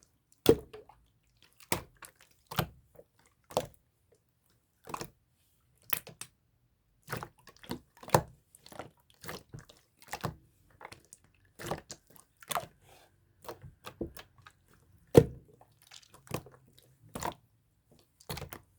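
Clear slime being pressed and squeezed by hand, giving irregular sticky pops and clicks about one or two a second.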